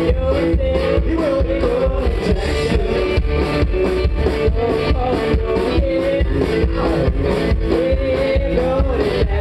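Live country-rock band playing with a steady quick drum beat, upright double bass and electric guitar, and a woman singing lead.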